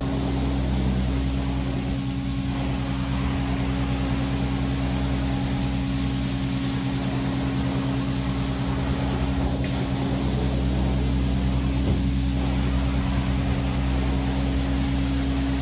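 Carpet extraction machine running: its vacuum and motor give a steady humming drone, with a rushing hiss as the wand sprays and sucks water out of the carpet.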